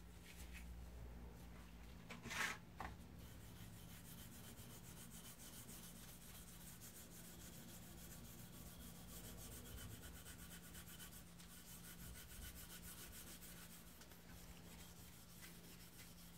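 Faint rubbing of a gloved hand working a paste finish onto the beech body of an old wooden molding plane, over a steady low hum. A brief louder scrape sounds about two and a half seconds in.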